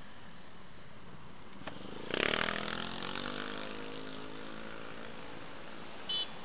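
City traffic pulling away from a junction: a vehicle engine passes loud and close about two seconds in, then fades slowly over a few seconds. A short high beep sounds near the end.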